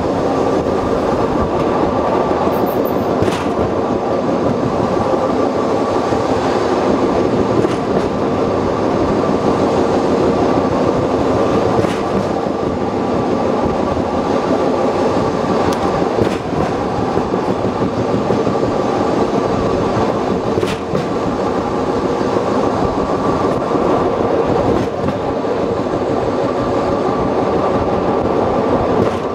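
Open trolley train running steadily along the track, a continuous rumble of wheels on the rails, with a faint clack every four seconds or so as the wheels pass rail joints.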